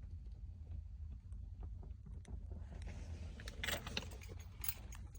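Low steady rumble with faint scattered clicks, turning to busier clicking and rustling in the last couple of seconds.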